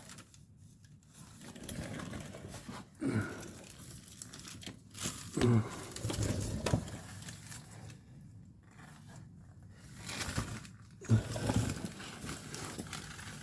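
Irregular rustling and crinkling close to the microphone, with a few soft bumps, from handling.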